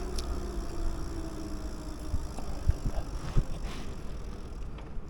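Steady low rumble of riding a bicycle, with wind on the microphone. A faint engine tone falls and fades over the first second or so, and there are a few light knocks and rattles in the middle.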